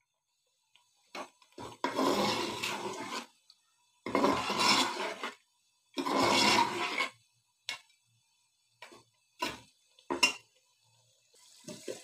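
A steel ladle stirring and scraping mutton pieces frying in ghee in a metal pot: three long scraping strokes about a second each, then a few short clicks of the ladle against the pot. This is the bhuna stage, the meat being fried in the ghee.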